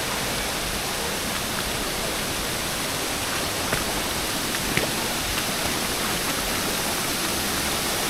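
Steady rush of creek water over cascades, an even hiss with a few faint clicks.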